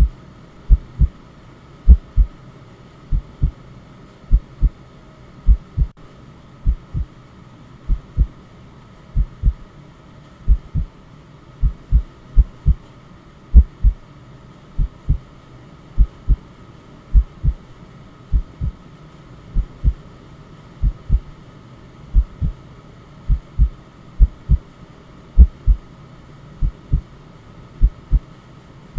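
Slow, steady heartbeat: a low double thump (lub-dub) repeating a little less than once a second-and-a-quarter, over a faint steady hum.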